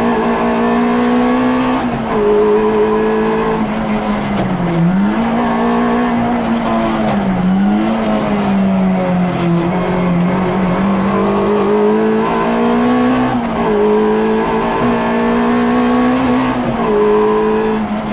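Peugeot 106 rally car's engine running hard at high revs, heard from inside the cabin. The pitch stays high but dips twice, around five and seven and a half seconds in, as the driver lifts and brakes, and drops briefly several times at gear changes.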